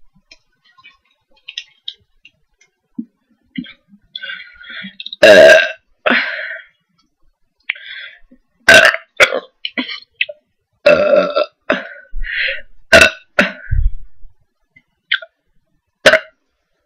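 Loud burps from gulped cola: one long, loud burp about five seconds in, followed by a string of shorter burps.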